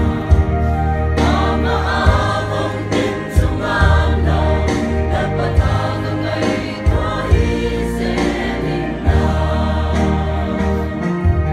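A mixed choir of men and women singing a Christian song together, over deep bass notes held a second or more at a time.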